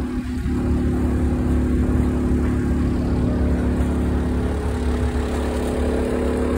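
Boat engine idling steadily: a low rumble with a constant droning hum.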